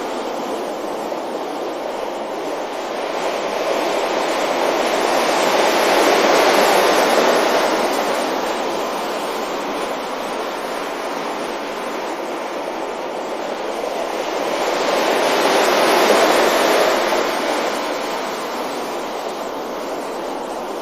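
Ocean waves breaking on a beach, the surf swelling and washing back; two waves build up, one about six seconds in and another about sixteen seconds in.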